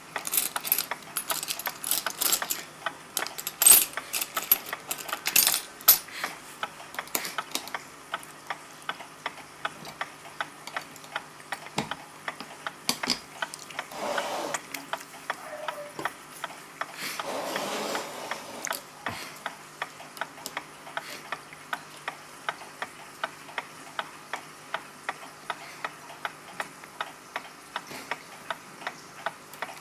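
Irregular clicks and rattles of small tools and metal parts being handled at a clock movement. After that, the clock's escapement ticks steadily at about two ticks a second, broken by two short rushing sounds in the middle: the escape wheel, which had been catching, is turning freely.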